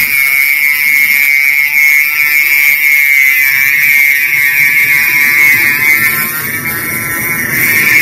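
NeuMaster NRT0036 3.6-volt cordless rotary tool running with a steady high-pitched whine as its grinding bit feathers down the metal shell of an HY H17 spindle connector. The whine wavers slightly near the end, then steadies.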